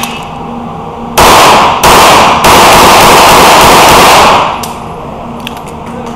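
A string of pistol shots in an indoor range, echoing off the hall. The first shots come about half a second apart, and the rest run together in an overloaded, saturated recording until the firing stops about four and a half seconds in. Light scattered clicks follow as the shooter moves.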